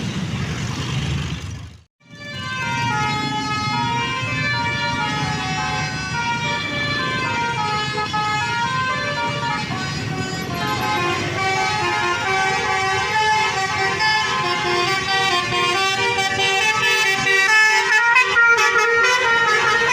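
A tour bus's multi-tone 'telolet' horn playing a tune of many short notes that step up and down in pitch, over the low rumble of an engine. It starts after a brief dropout about two seconds in.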